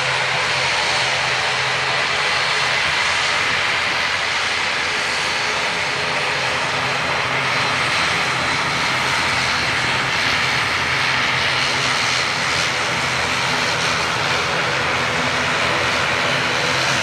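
Airliner engines running steadily: an even, loud rush with a steady whine, holding level with no rise or fall.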